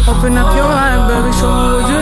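Hip-hop/R&B song with a heavy bass line and a beat under a wavering melodic line, likely a sung vocal.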